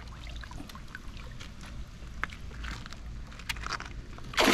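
Low wind rumble on the microphone with faint trickling water and scattered light ticks, then a sudden loud splash of water near the end.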